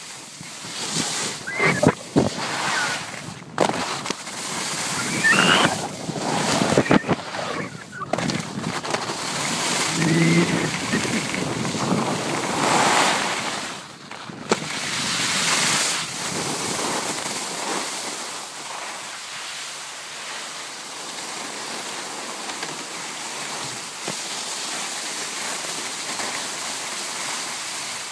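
Wind rushing over the microphone and skis hissing and scraping over packed snow while skiing, with several sharp knocks in the first eight seconds or so.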